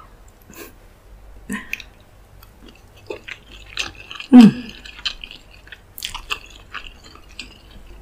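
Close-miked chewing of a mouthful of white rice with tomato stew: scattered soft clicks and wet mouth sounds, with one louder, lower sound falling in pitch a little after four seconds in.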